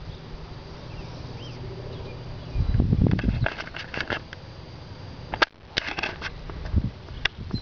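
Footsteps on pavement with scattered clicks and knocks over a low, steady rumble, with a heavier thump about three seconds in.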